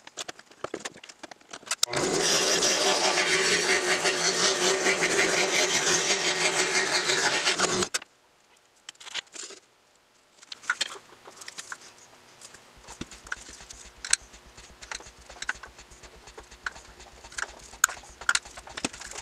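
Scroll saw running and cutting through a wooden panel for about six seconds, a steady buzz that stops abruptly. Afterwards only scattered light clicks and taps.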